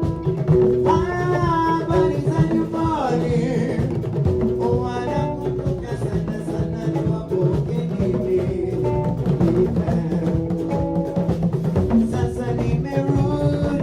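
Live band playing at a sound check: a drum kit keeps a steady beat under guitar and singing, with a melody line sliding down in pitch about two to three seconds in.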